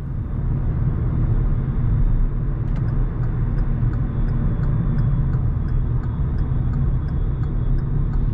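Steady low engine and tyre rumble heard inside a moving car's cabin. From about three seconds in, the turn-signal indicator clicks at roughly three clicks a second, signalling a lane change to the left.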